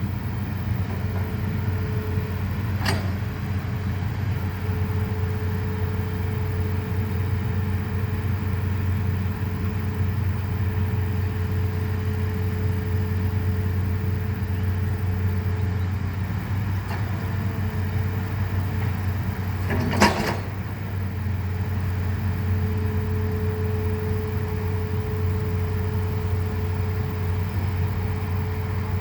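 Excavator's diesel engine running steadily with a low, even drone. A short sharp knock comes about 3 seconds in, and a louder metallic clank about 20 seconds in.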